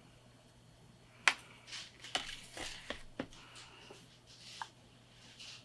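Eyeshadow being picked up and applied: a sharp click about a second in, then a few lighter taps and short soft brushing rustles.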